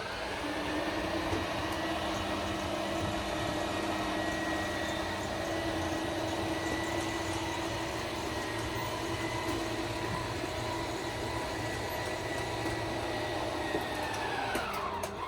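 Electric slide-out motor of a Forest River Forester 3011DS motorhome running the bed slide out, a steady mechanical whine that winds down in pitch and stops near the end as the slide reaches its stop.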